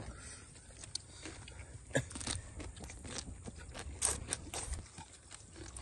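Close-up chewing of shredded green papaya salad (bok lhong): irregular crisp crunches and wet mouth clicks, the sharpest about two and four seconds in.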